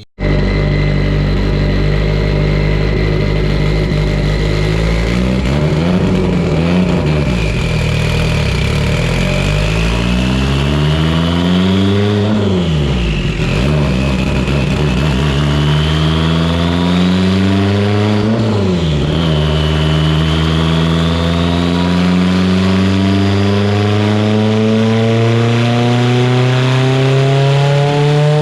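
Mitsubishi Lancer Evolution VIII's built 2.0-litre turbocharged four-cylinder running on a chassis dyno. Engine speed dips and climbs three times, then rises steadily under load near the end, with a high whine rising and falling above the engine note. This is a test pull made after re-gapping the spark plugs and lowering the coil dwell to cure ignition breakup under boost.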